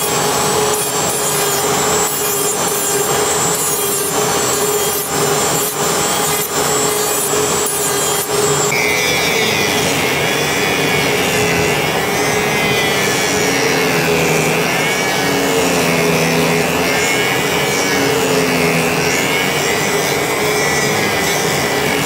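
Electric grinder running steadily while a pocket knife is held against it, a loud rasping grind over the motor's constant hum. About nine seconds in the grinding changes character, with a wavering, rising and falling tone as the pressure on the work shifts.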